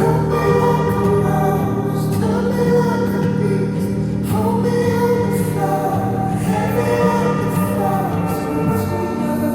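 Background music: a song with sung vocals over steady accompaniment.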